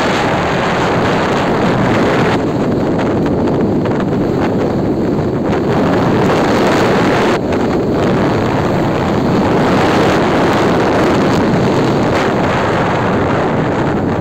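Loud, steady wind noise buffeting the microphone while riding a bike along a road, dipping briefly about halfway through.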